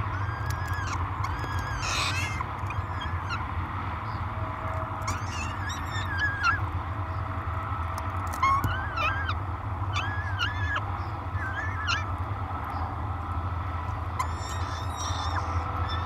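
Peregrine falcon chick giving repeated short, rising-and-falling begging calls while being fed, over a steady low hum.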